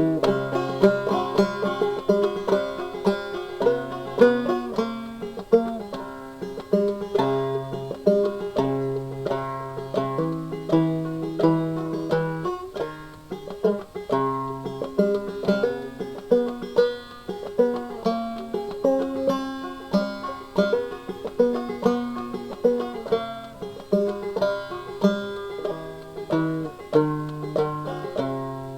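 Banjo music: a quick, steadily picked plucked-string tune.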